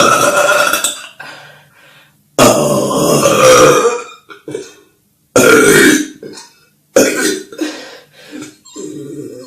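Girls burping loudly, one burp after another with sudden starts: four loud burps of roughly half a second to a second and a half each, then a quieter one near the end.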